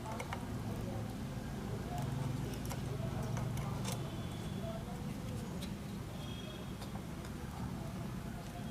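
Scattered light ticks and taps of hand soldering work on a circuit board, over a steady low hum.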